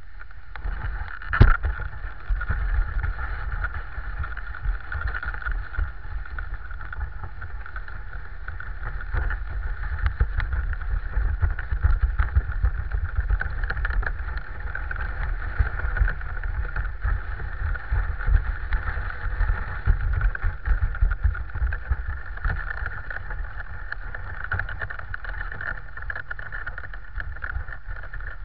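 Dog sled running over a packed snow road: the runners hiss and scrape steadily over a low, uneven rumble. There is one sharp knock about a second and a half in.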